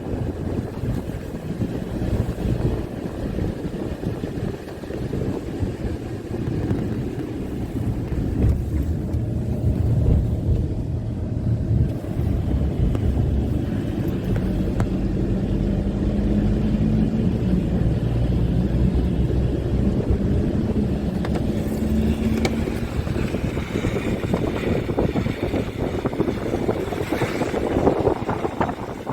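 Wind buffeting the microphone: a continuous, uneven low rumble, with a faint steady hum partway through.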